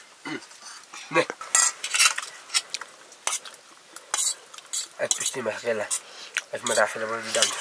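Utensils clinking against metal dishes during a meal: a run of sharp, irregular clinks. Two short, low vocal sounds come about five and seven seconds in.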